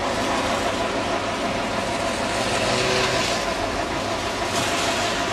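Minibus engine idling steadily, a constant low hum under a hiss that swells a little in the middle.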